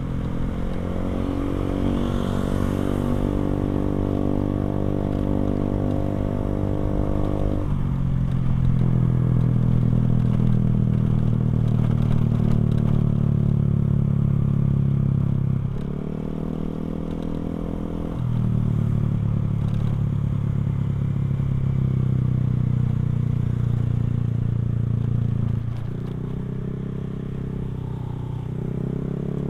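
Motorcycle with a NOB1 aftermarket exhaust running while riding. The engine note climbs slowly, then steps down about eight seconds in, and dips and recovers a few more times later on.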